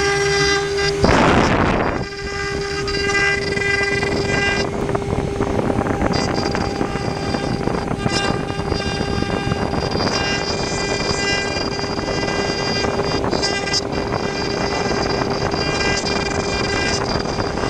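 CNC router spindle running with a steady high whine while its fine carving bit cuts into wood, a rough grinding noise under the whine. A louder burst of cutting noise about a second in.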